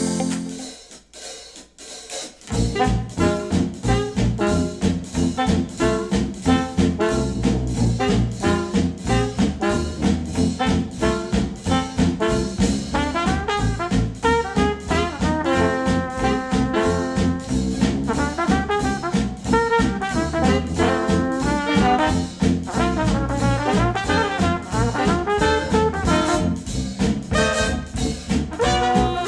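Instrumental music with brass and a drum kit, played through KEF R3 bookshelf speakers driven by a NAD C 338 integrated amplifier. A new track starts after a brief near-silent gap, about two and a half seconds in, and then runs on with a steady beat.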